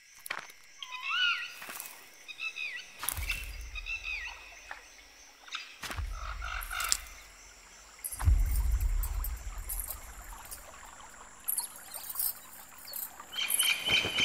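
Birds chirping with short rising and falling calls in the first few seconds, over outdoor ambience broken by several sharp clicks and three stretches of deep, low rumbling.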